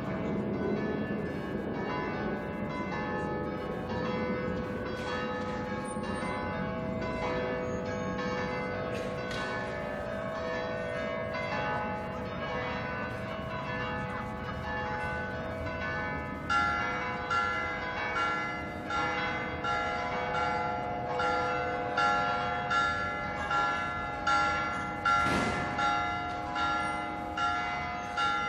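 Church bells ringing, many strokes overlapping and ringing on into one another. About halfway through, the ringing turns into a steady series of strikes, a little under one a second, each ringing out and fading before the next.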